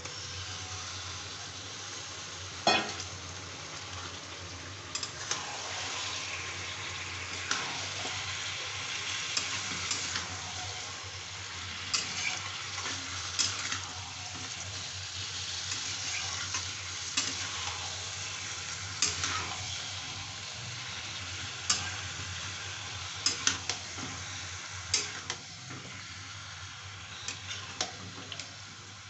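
Raw chicken pieces sizzling in hot oil with fried onions in a wok. The sizzle jumps up at the start as the chicken goes in, and a metal spatula stirs and clacks against the pan every couple of seconds.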